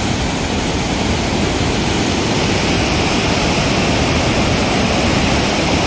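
Water pouring through a dam's open spillway gates and crashing down below: a loud, steady rush of falling water.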